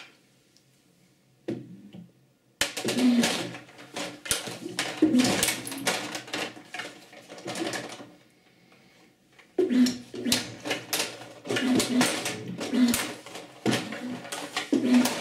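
Table hockey in play: rapid clicking and knocking of the plastic player figures, metal rods and puck against sticks and boards, with short whirs from the robot's motors driving the rods. It starts after a quiet couple of seconds and pauses briefly past the middle.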